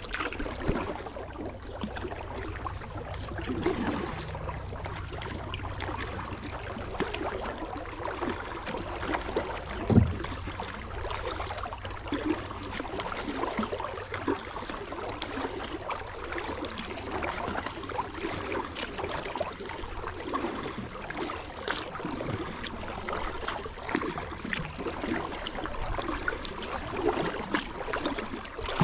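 Kayak being paddled on a river: paddle blades dipping, with water splashing and dripping in an uneven patter, and a single low thump about ten seconds in.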